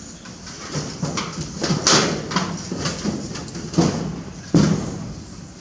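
A run of irregular knocks and thumps, the loudest about two seconds in and again about four and a half seconds in.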